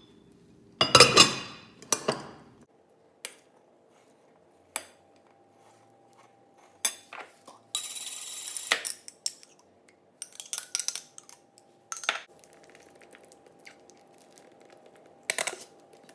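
Metal tongs and spoons clinking and scraping against a plastic mixing bowl as shredded chicken, corn and peas are stirred, in scattered sharp knocks, loudest about a second in, with a short scraping rasp near the middle.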